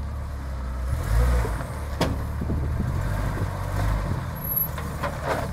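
Jeep Cherokee XJ's engine running low and steady as it crawls down over boulders, with one sharp knock about two seconds in and a few lighter knocks near the end.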